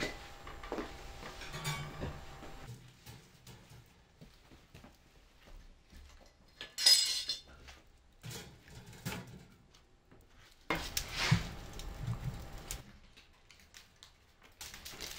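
Dishes and cutlery being handled, with scattered clinks and knocks. About seven seconds in there is a short, loud hissing rush, and about eleven seconds in a louder stretch of clatter.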